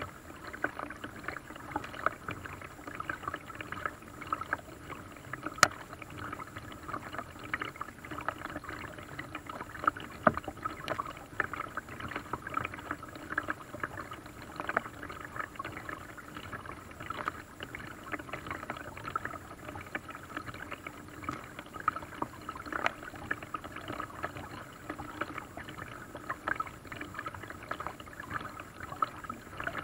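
Paddling a small boat on a lake: water splashing and dripping off the paddle and lapping against the hull as a steady crackle, with a couple of sharper knocks in the first third.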